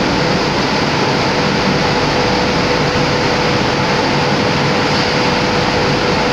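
Plansifter running in a flour mill: steady, loud machine noise with a constant hum.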